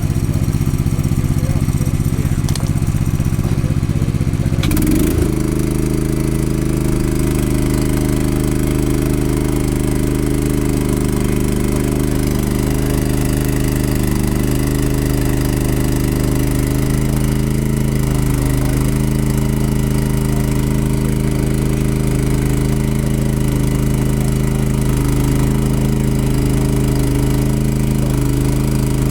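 Small engine of a JLG T350 towable boom lift running steadily, about five seconds in its note briefly glides and settles into a new steady pitch, as the lift is worked.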